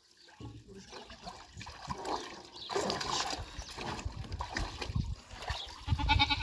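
Liquid splashing and sloshing in a wooden trough as a goat is dunked in insecticide dip to kill lice. A goat bleats near the end.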